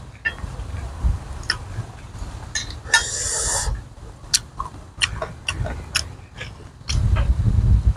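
Close-miked eating sounds: sharp clicks of a metal spoon against a metal plate and a brief rustle of papaya buds and leaves as a bite is wrapped. Then a louder spell of biting and chewing near the end.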